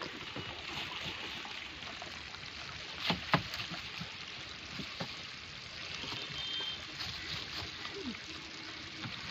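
Water washing against a small wooden boat, a steady hiss, with a couple of sharp knocks on the boat about three seconds in and a lighter one a little later.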